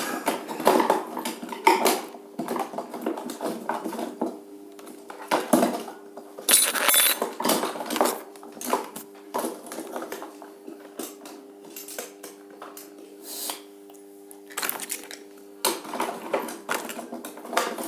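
Irregular metallic clinks and knocks of hand tools and small hardware being handled while screws are tightened onto the transformer's wire terminals, over a steady hum.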